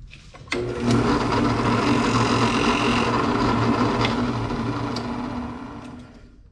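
Drill press running while a dull carbide cutter scrapes against a spinning piece of plastic cutting board. The sound starts suddenly about half a second in, holds a steady hum under the scraping, and fades away near the end.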